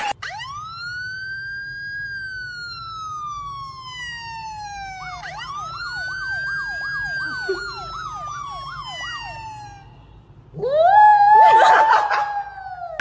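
A siren sound: a long rising and slowly falling wail, then a second wail overlaid with a fast, regular warble. About ten seconds in, a small white fluffy dog howls along loudly, rising and then holding its pitch.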